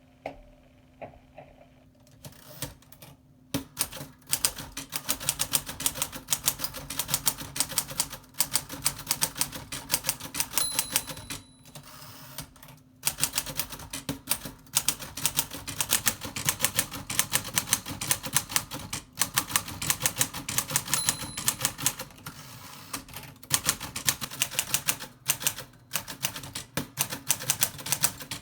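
Corona Standard 3C manual typewriter being typed on at a steady pace, a rapid run of sharp key and typebar clacks with short pauses. A brief high ring, the margin bell, sounds twice. The machine is freshly serviced, its linkages and segment straightened and cleaned.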